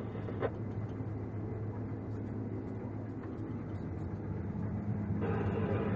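A farm machine's engine running steadily with a low drone. There is a short click about half a second in, and a louder rushing noise joins from about five seconds in.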